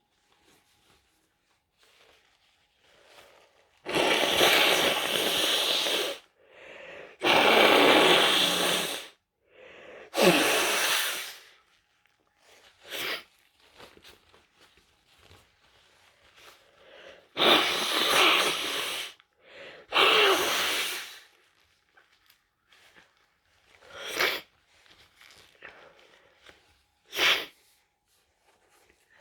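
A person with a congested head cold stifling a series of sneezes: loud, muffled bursts come in two clusters, the first about four seconds in and the second a little past halfway, and shorter, sharper ones follow near the end. Wheezy breaths come between them.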